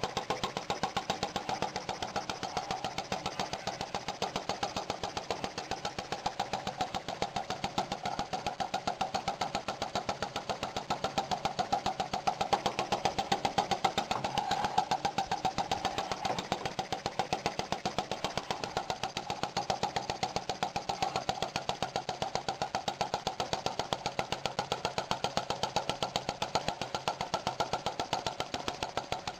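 Paradox flame licker gas engine running on illuminating gas, with a quick, even beat of strokes. It gets a little louder about halfway through.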